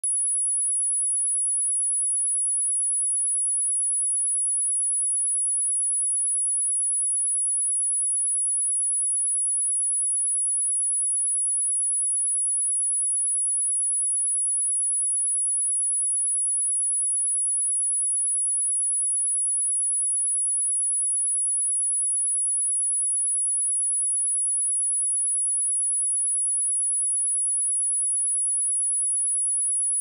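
Pure sine-wave test tone at 10,203 Hz, a single high-pitched whistle held steady without change.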